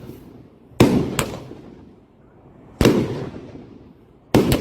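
A 25-shot salute fireworks cake firing: five sharp bangs at irregular gaps, two pairs in quick succession, each fading away in a trailing echo.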